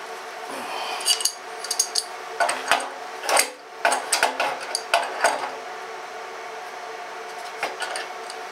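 Metal-on-metal clinks and taps of a large adjustable wrench against a threaded air fitting and the compressor's metal panel as the fitting is fitted and tightened. A cluster of sharp clinks comes in the first half, then a few more near the end.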